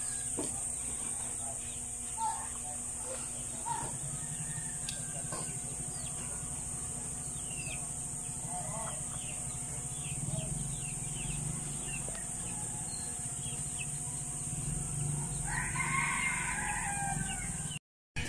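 A rooster crowing, loudest near the end, over faint scattered bird chirps.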